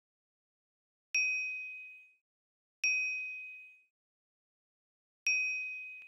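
Check-mark sound effect: a bright single-tone ding, three times. Each ding starts sharply and fades over about a second.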